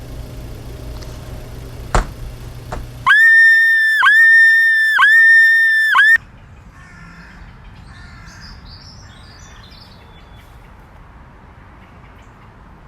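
A low steady hum with a sharp click about two seconds in, then a loud high-pitched tone held for about three seconds, dipping briefly about once a second, that cuts off abruptly. After it comes a quiet background with faint bird chirps.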